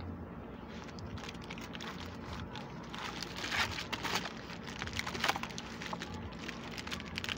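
Handling noise from charcoal and fire-starter paper being arranged in a grill before lighting: irregular rustling and crinkling with scattered light clicks, two louder ones about three and a half and five seconds in.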